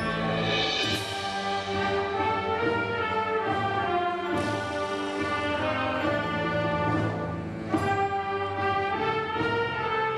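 School concert band playing a slow original piece: held brass and wind chords shifting every second or two. There is a sharp crash about a second in, and new entries come in near the middle and again toward the end.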